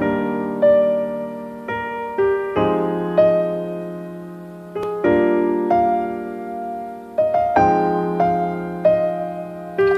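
Background piano music: a slow, gentle piece of single notes struck over held chords, each note fading after it is played.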